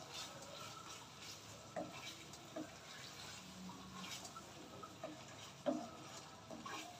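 Wooden spoon stirring thick hog plum pickle around a wok: faint scraping with a few light clicks and knocks against the pan, the sharpest one late on.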